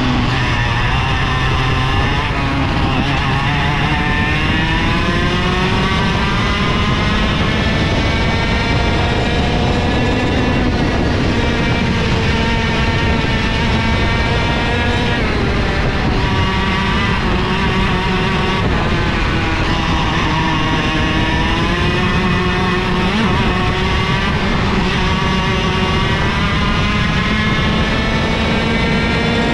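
IAME KA100 kart's 100cc two-stroke engine running at racing speed. Its pitch climbs steadily along each straight and drops off sharply four times as the kart slows for corners.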